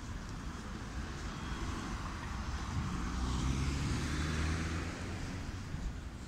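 Street traffic on a city avenue, a steady rumble of cars. One engine swells louder as it passes close, about three seconds in, then fades.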